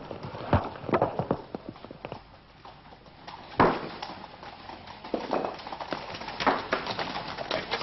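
Horse hooves clopping on hard ground: a few scattered hoofbeats at first, one sharp knock about three and a half seconds in, then a quicker run of hoofbeats near the end.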